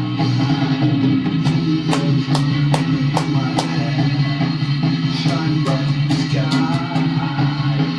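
Rock music playing: dense, distorted electric guitars and bass over a steady drum beat.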